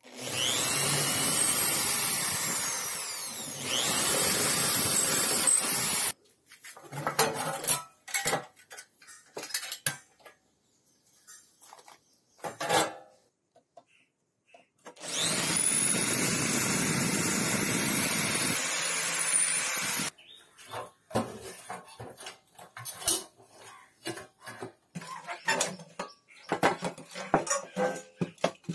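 A handheld power tool running against metal in two runs of about six and five seconds, its pitch gliding as it speeds up and bears down. Between and after the runs come scattered clinks and knocks of metal parts being handled.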